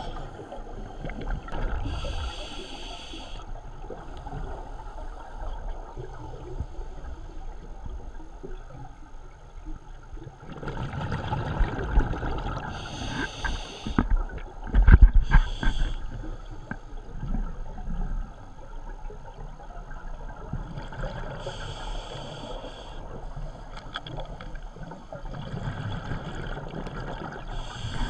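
Scuba regulator breathing underwater: short hissing inhalations every several seconds, with rumbling, gurgling bursts of exhaled bubbles between them. The loudest bubble burst comes about halfway through.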